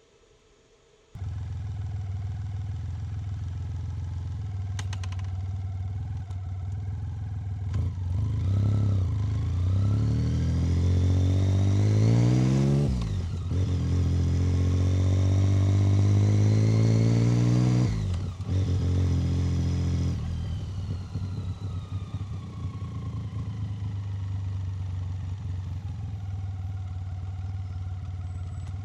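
1990 BMW K75's three-cylinder engine cutting in abruptly about a second in and running steadily, then revving up through a gear change and revving up again before the throttle closes. The engine note falls away and settles into a steady lower run.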